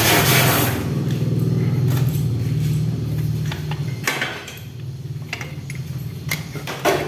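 Scattered light metallic clicks and knocks as a motorcycle water pump and its housing are worked loose from the engine by hand, over a steady low hum that fades after about four seconds.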